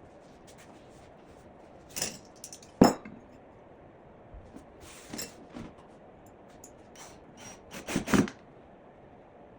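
A handful of sharp clinks and knocks, as of metal tools and hardware being handled and set down during woodworking, the loudest a little under three seconds in and several close together near the end.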